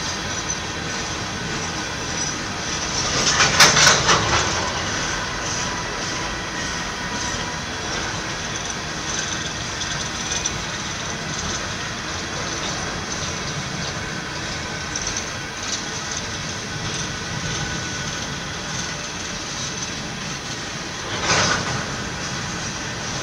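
Empty coal cars of a BNSF freight train rolling past: a steady rumble and rattle of wheels on rail with faint thin squealing tones. Two louder surges of wheel clatter come about three and a half seconds in and again near the end.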